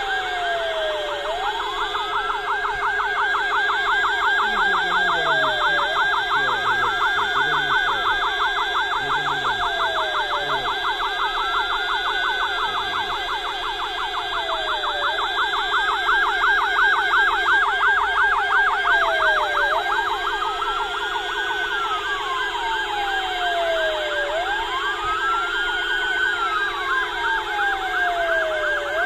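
Several vehicle sirens sound together as the signal for a commemorative minute of silence. One siren wails, rising quickly and falling slowly, about every three to four seconds, over a rapid warbling siren and steady blaring tones.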